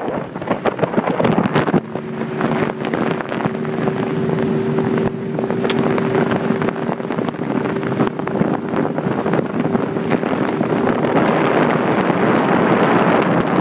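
Open speedboat under way, its engine holding a steady drone under heavy, gusty wind buffeting on the microphone.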